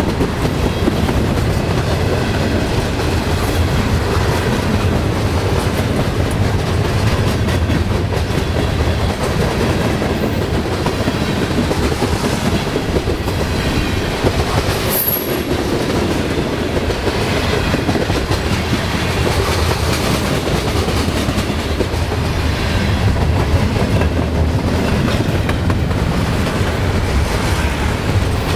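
Freight train's tank cars and covered coil cars rolling past close by: steel wheels running over the rails in a loud, steady rumble.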